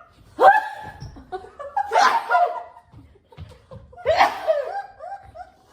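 Three short vocal outbursts from a person, about two seconds apart, each a voiced cry with a sharp breathy burst.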